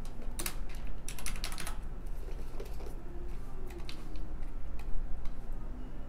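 Typing on a computer keyboard: a quick run of key clicks about half a second in and a longer flurry around one to two seconds in, then only an occasional click.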